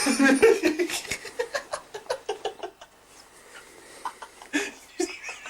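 Men laughing in quick, rhythmic bursts that die down after about three seconds, with a short burst of laughter again near the end.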